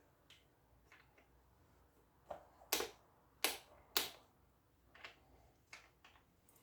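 Sharp clicks and knocks of fan parts being handled and fitted together during assembly, a few light taps with three louder clicks close together about three to four seconds in.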